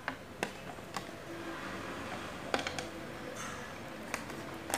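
Clear plastic packaging being handled as earphones and their thin cable are pulled out of it: a faint crinkling rustle with a handful of separate sharp clicks.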